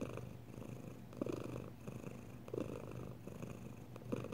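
Domestic cat purring, a soft rumble that swells with each breath, about once every second and a half.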